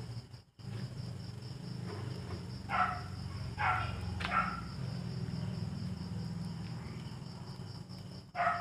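A dog barking about three times between three and four and a half seconds in and once more near the end. Under it, crickets chirp steadily over a low hum.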